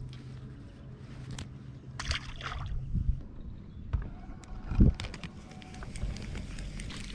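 Lake water lapping against a small fishing boat's hull, with knocks from the boat and gear and one hard thump about five seconds in. A steady low hum runs through the first two seconds or so, then stops.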